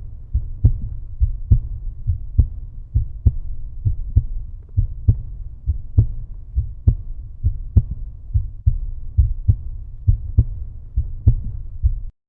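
Outro music with a deep, muffled bass beat pulsing a little over twice a second. It cuts off suddenly near the end.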